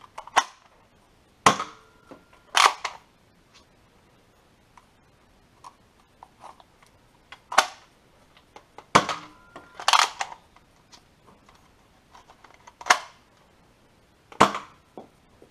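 Nerf Modulus Ionfire spring-powered dart blaster being primed and fired: about eight sharp plastic clacks and snaps, spaced one to a few seconds apart, some in close pairs.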